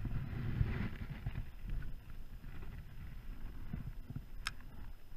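Uneven low rumble of wind and water around a small fishing boat, with rustling from handling the spinning rod and reel and one sharp click about four and a half seconds in.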